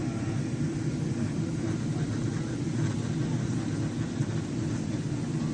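Steady engine and airflow noise heard inside the cabin of a Boeing 777-300 airliner on approach, a low, even drone.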